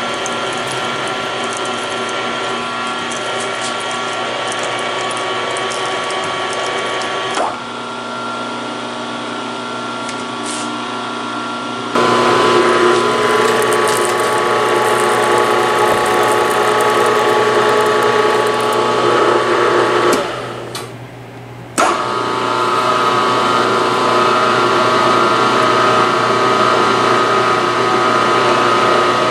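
A drilling machine running steadily as it drills holes in a half-inch aluminum plate, a mechanical whine made of several steady tones. It steps up louder partway through, dies down for a moment, then cuts back in abruptly.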